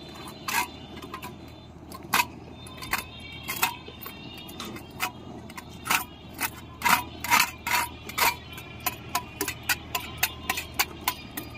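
Hand scraper scraping and chipping spilled thermoplastic marking material off the road surface, a run of sharp, irregular scrapes and clicks that quicken to several a second near the end.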